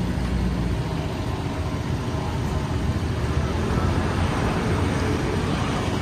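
Steady street traffic noise from passing scooters and cars, a constant low rumble with no single event standing out.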